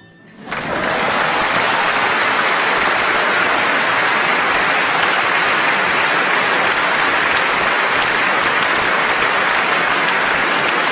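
The last piano notes die away, then about half a second in a large concert audience breaks into loud, dense applause that holds steady throughout.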